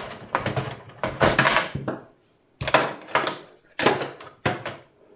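Hands handling cables and parts inside an open steel desktop computer case: a string of sharp clicks and knocks, with a longer rustling scrape about a second in.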